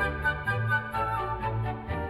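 Cartoon background music: a melody over a low note that repeats about twice a second.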